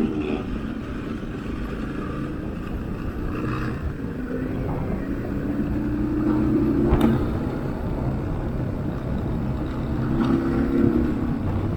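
Trail motorcycle engine running, its revs rising about six seconds in and again near the end, with a sharp click around the first rise.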